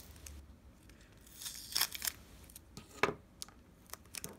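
Crinkly tearing and scraping about a second and a half in, then a few sharp clicks. This is the swollen iPhone 6 battery being pried and peeled loose from its adhesive and handled.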